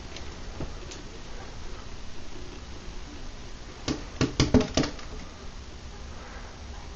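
Robin striking the window glass with its beak: a quick run of about six sharp taps a little after the middle, with a few fainter taps in the first second.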